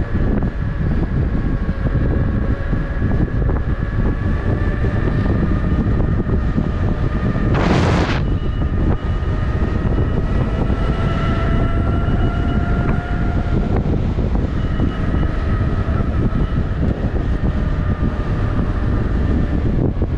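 Wind rushing over the microphone while riding an electric unicycle, with the wheel's motor whining in several steady tones that drift slightly in pitch. A short, loud hiss cuts in about eight seconds in.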